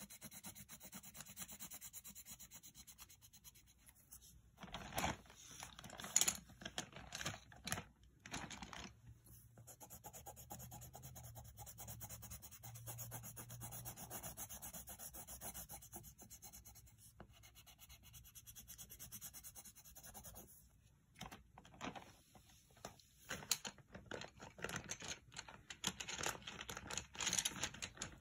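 Coloured pencil scratching on lined notebook paper in rapid back-and-forth strokes as a drawing is coloured in, louder in spells about a fifth of the way in and again near the end.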